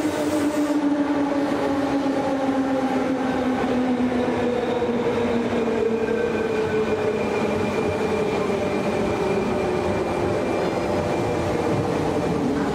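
JR 201 series electric commuter train running into the station and slowing, its traction motors whining in several tones that fall steadily in pitch as it loses speed, over the rumble of wheels on rail. A thin high steady tone joins about halfway through.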